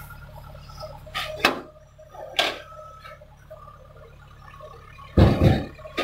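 Woven rice sacks being handled and set down: several short rustling swishes and a heavy thump about five seconds in. A low steady hum underneath drops away about a second and a half in.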